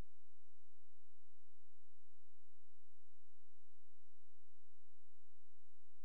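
A steady, unchanging pure tone with a fainter low hum beneath it. No clicks of balls or cue are heard.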